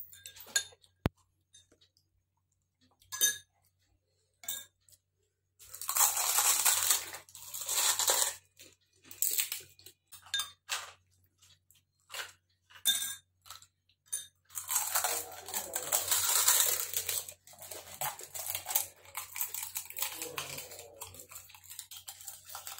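Crisp panipuri shells being cracked open and filled, with sharp clicks and clinks of a plastic spoon against glass bowls of spiced water, then longer stretches of crunching and chewing as the shells are eaten.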